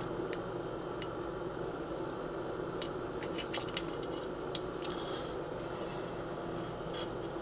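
A few light, scattered metal clicks as a small hex driver works the screw of a Glock 17 front sight, starting it by hand in the slide, over a steady background hum.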